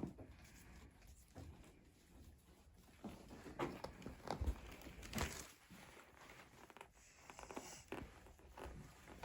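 Faint, irregular rubbing and rustling of a rolling pin being rolled over a patient's legs for soft-tissue work, busiest a few seconds in.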